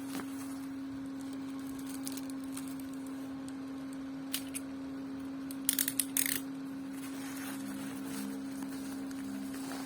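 A parcel's packaging being handled and opened by hand: a couple of small clicks, then a short burst of sharp crackling and snipping about six seconds in, over a steady low electrical hum.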